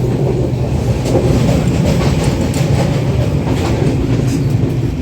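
Rajdhani Express passenger train running along the rails: a steady low rumble of the coach with occasional faint clicks of the wheels over the track.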